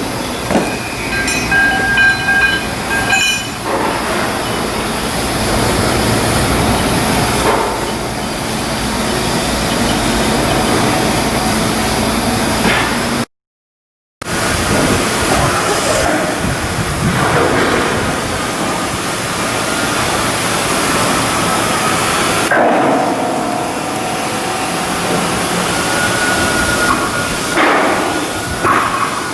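Continuous loud shipyard work noise: machinery running, with knocks and a few thin metallic squeals. It cuts out completely for about a second roughly 13 seconds in.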